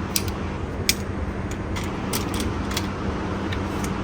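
Steady low ventilation hum with a handful of short, sharp clicks scattered through it, the loudest a little under a second in.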